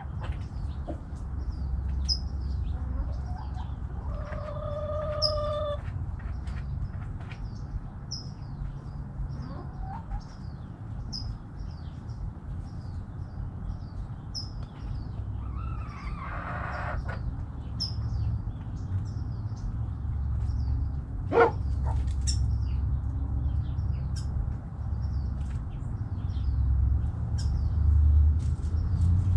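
Backyard chickens calling now and then, a drawn-out call about four seconds in and a harsher one about sixteen seconds in, while a small bird repeats a short high chirp about every three seconds. A steady low rumble runs underneath, and one sharp sound stands out about two-thirds of the way through.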